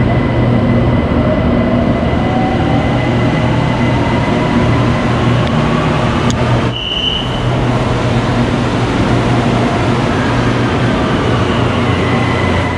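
BTS Skytrain electric train running through an elevated station: a steady low rumble with a faint whine rising slowly in pitch. A short high tone sounds about seven seconds in.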